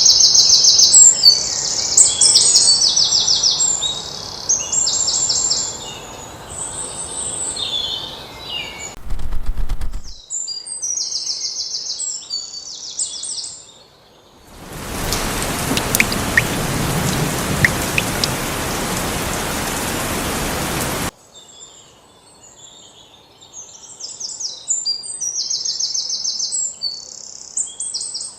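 Small birds calling in rapid, buzzy repeated trills, high-pitched and in bursts. About halfway through, a loud, steady rushing hiss takes over for several seconds and then cuts off suddenly. A low thump comes shortly before it.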